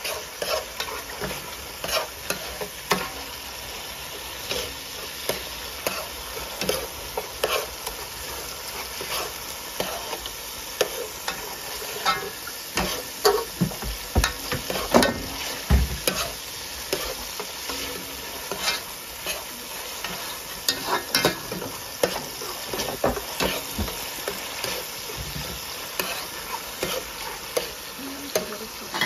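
Metal spoon stirring and scraping a tomato mixture frying in oil in a metal pot: a steady sizzle under irregular scrapes and clinks of the spoon against the pot, busiest around the middle.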